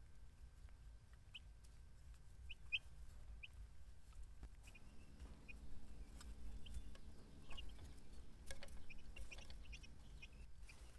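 Young chicks peeping faintly in short, scattered chirps, over a low steady hum and a few light ticks.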